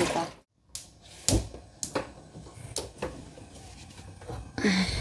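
Kitchen items being handled during cooking: four or five separate sharp clicks and knocks, then a short rustling burst near the end.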